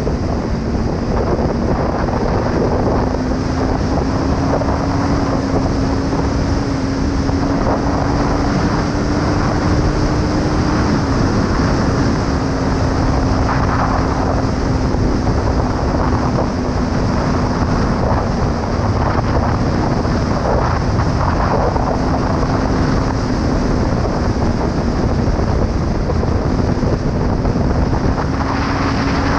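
Kawasaki ER5's parallel-twin engine pulling at a steady, fairly high road speed, its note creeping slowly upward, easing a little about a third of the way in, and rising again near the end. Heavy wind noise on the helmet-mounted camera's microphone.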